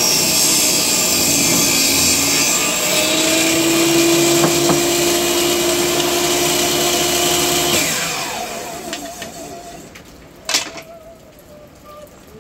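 Makita MLT100 table saw running and ripping a length of structural softwood lumber fed with a push stick. About eight seconds in the saw stops and the blade winds down with a falling whine, and a single sharp knock follows near the end.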